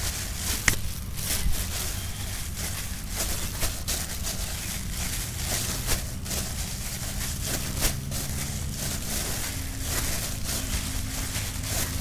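Thin plastic bag crinkling and rustling in the hands as dough bait is handled inside it, in irregular crackles throughout. A steady low hum runs underneath.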